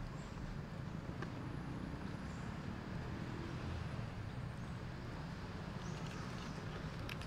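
Steady low outdoor background rumble with faint hiss, broken by a few faint clicks and a brief high chirp near the start.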